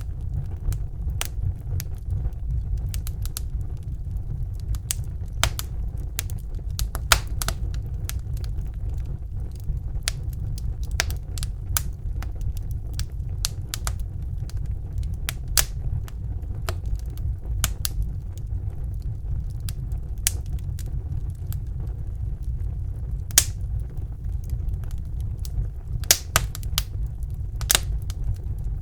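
Wood fire burning in a fireplace: a steady low rumble of the flames with irregular sharp crackles and pops from the burning logs, a few louder pops near the end.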